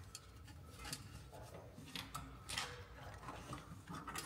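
Faint scrapes and a few light clicks as a thin guide wire is pulled up through the engine bay, drawing the O2 sensor lead up past the pipes.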